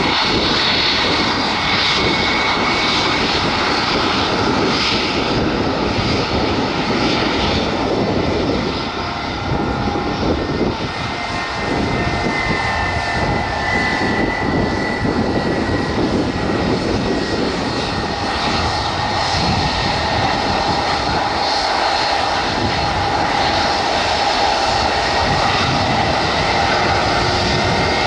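Airliner engines running steadily, a loud rushing noise with a thin whine in it, under gusty wind on the microphone.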